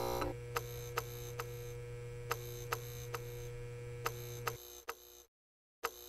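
Outro sound effects: a steady electrical hum with sharp clicks at uneven intervals. The hum stops about four and a half seconds in, and after a brief silence near the end the clicks start again.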